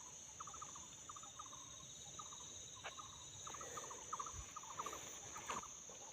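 Laughingthrushes giving repeated short rattling chatter calls over a steady high insect drone, with a couple of sharp clicks.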